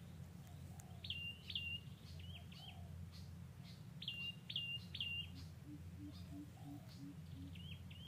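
Wild birds calling: repeated short chirps, each a quick downward sweep into a brief held whistle, coming in clusters of two or three. From about five seconds in, a run of short, evenly spaced low notes, about three a second, over a steady low rumble.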